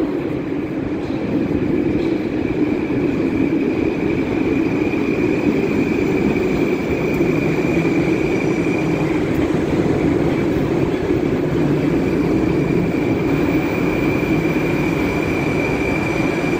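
Moscow metro train pulling in alongside the platform: a steady rumble of wheels and running gear, with a steady high whine over it.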